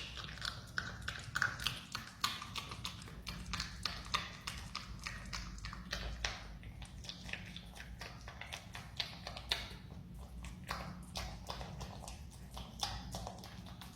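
A marmot chewing banana, a quick, even run of small wet clicks and smacks, about four a second.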